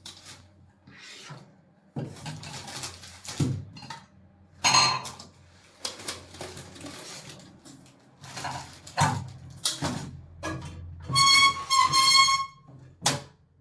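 Objects being handled and set down in a small room: irregular knocks, clinks and rustling, with two short ringing tones near the end.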